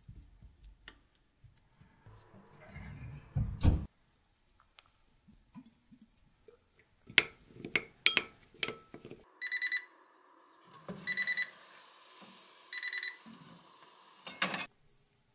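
A wooden spoon clinks against a small glass bowl of garlic cloves in olive oil. Then an oven hums steadily while its controls give three sets of short electronic beeps. Near the end a loud clunk comes as the glass baking dish is pushed onto the oven rack.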